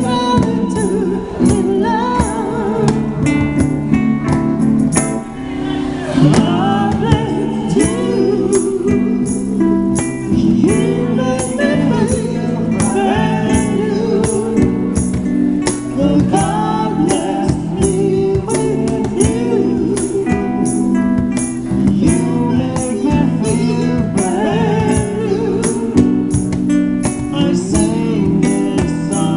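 Live band music: an acoustic guitar strummed through an amplifier while a man and a woman sing, with hand percussion keeping a steady beat.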